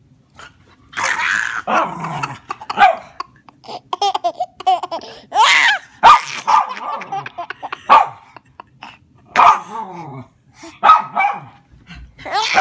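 A dog barking repeatedly in short bursts while a baby laughs.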